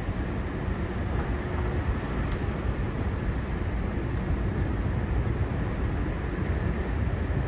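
Steady low rumble of city street traffic, even throughout with no single event standing out.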